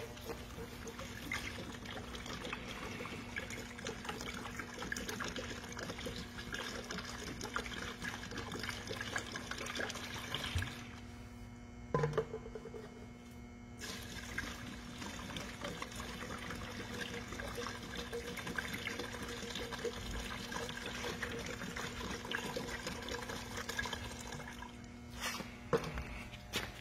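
Water and Bitu-Ox 400 asphalt remover pouring in a steady stream from plastic bottles into a shallow plastic tub of tar. The pouring stops briefly about halfway through, with a single knock during the pause, then starts again.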